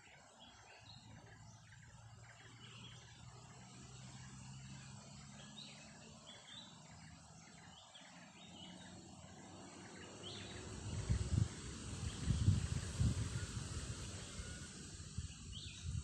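Outdoor ambience: scattered short bird chirps over a faint insect hiss, then from about ten seconds in gusts of wind buffeting the microphone, getting louder.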